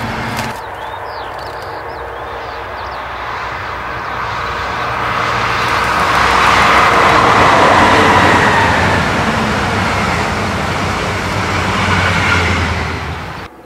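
DB class 218 diesel-hydraulic locomotive hauling double-deck coaches past: the engine's drone and the wheel and rail noise swell as the train approaches, are loudest about halfway through, then fade as it goes by, cutting off suddenly near the end.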